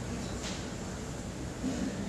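Steady room noise of a quiet hall, with a short soft sound about half a second in.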